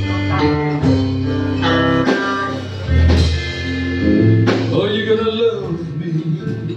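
Small live blues band playing an instrumental passage between sung lines: plucked guitar notes over a steady bass line and drums.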